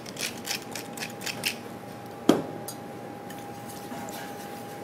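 Hand pepper mill grinding: a quick run of gritty clicks over about the first second and a half. A single sharp knock with a short ring follows a little past two seconds in, and a faint steady tone runs underneath.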